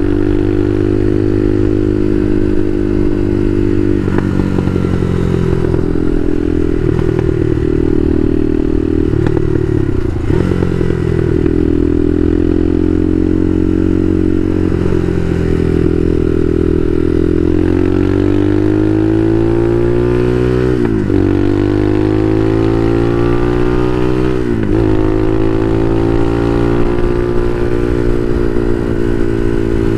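Bashan Motomax 250 supermoto's engine under way, revs rising and falling. In the second half it climbs steadily in pitch under acceleration, with two quick drops and recoveries at gear changes.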